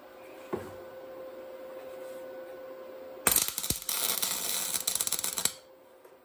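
Electric arc welder striking an arc on steel and holding it for about two seconds: a loud crackling hiss that cuts off abruptly, as a bracket is tack-welded onto a steel channel. Before the weld, a faint steady hum.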